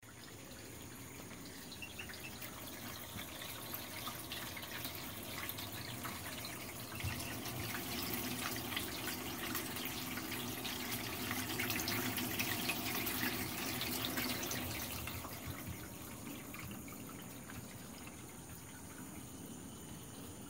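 Small electric bilge pump running with a low hum while water trickles and drips. It grows louder in the middle and fades over the last few seconds.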